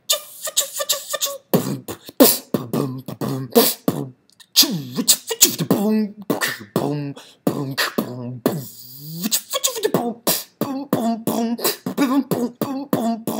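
Beatboxing: rapid mouth-made drum hits and clicks mixed with short pitched vocal sounds, as a beat for a dance.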